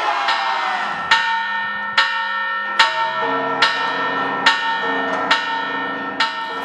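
Large bells ringing out, struck about once a second, each stroke ringing on over the last, with deeper sustained bell tones joining about three seconds in.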